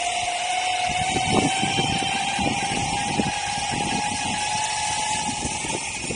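Ecomobl ET electric skateboard's motors whining, the pitch rising slowly as the board picks up speed, over a steady hiss of its wheels on wet road. An irregular low rumble comes in about a second in.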